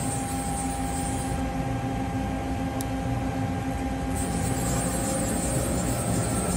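Mori Seiki ZL-35MC CNC lathe running with a steady mechanical hum and a few held tones. A high hiss drops away early and comes back about four seconds in.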